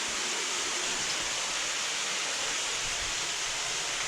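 Steady rushing of a waterfall, heard from inside the small cave behind it.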